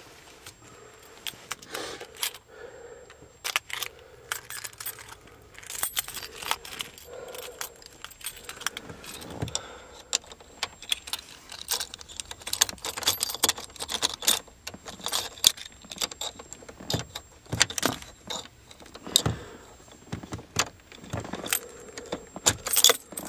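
A bunch of keys on a key ring jangling and clinking as a hand sorts through them and works one into the truck's ignition lock. The clinks are many, quick and irregular, and keep going the whole time.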